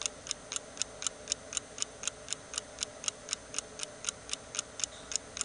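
Clock ticking steadily at about four ticks a second over a faint steady hum.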